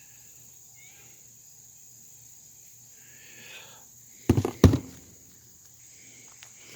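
Two sharp knocks in quick succession a little past four seconds in, as hard tools such as screwdrivers are handled and set down. Behind them, a steady high-pitched chirring like crickets.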